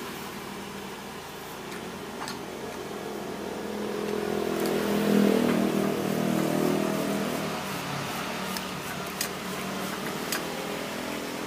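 A motor vehicle's engine passing on the road, swelling to its loudest about five seconds in and then fading, over steady traffic noise. A few light clicks are heard alongside.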